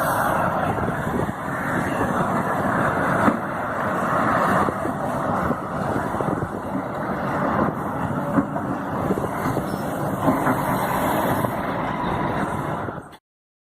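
Large Volvo excavator's diesel engine and hydraulics working steadily at a truck-loading site, with a few short knocks. The sound cuts off suddenly near the end.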